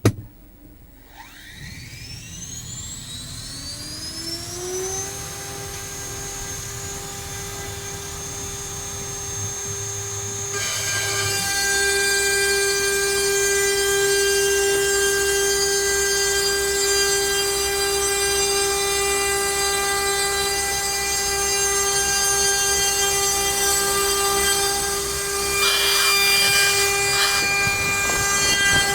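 CNC router spindle switched on and spinning up with a rising whine over about five seconds, then holding a steady high whine. About ten seconds in, a rougher hiss joins as the bit starts cutting into the pine.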